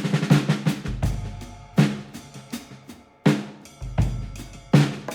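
Background music led by a drum kit, with sharp snare and kick hits over a low bass line.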